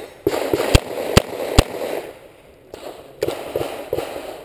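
Three shots from a Smith & Wesson 686 revolver, about 0.4 s apart in the first two seconds, followed by rustling and movement noise with small thumps.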